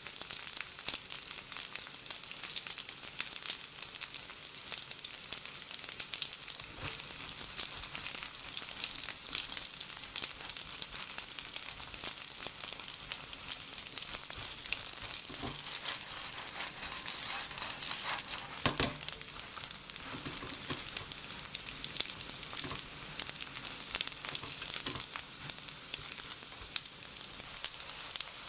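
Dumplings pan-frying in oil in a nonstick frying pan: a steady sizzle full of small crackling pops. A few sharper clicks come as a spatula turns the dumplings, around the middle.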